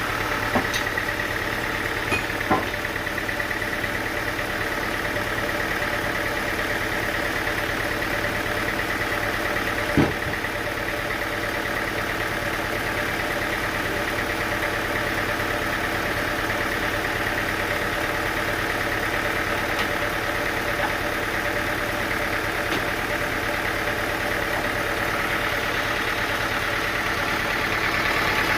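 An engine running steadily at an even speed, with a few sharp knocks: one about half a second in, two around two seconds, and a louder one near ten seconds.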